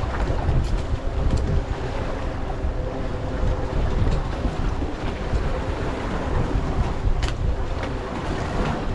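Wind buffeting the microphone on an open boat deck at sea, over the wash of waves, with a faint steady hum from the boat. There is a single sharp tick near the end.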